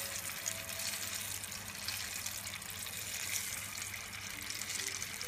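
Battered cempedak (jackfruit) fritters deep-frying in hot oil: a steady sizzle with fine crackle as the oil bubbles around the battered pieces, one of them held at the surface and then dropped in.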